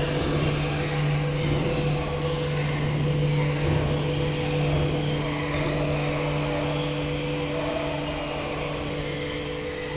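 Steady machine hum from an earthquake shake-table test rig running a simulated quake: a low drone with higher tones held over a noise floor, no knocks or rattles standing out.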